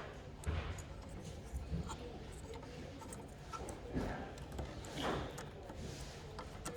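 Faint handling noises: small clicks and soft rustles of hands pushing a faston spade connector onto a terminal.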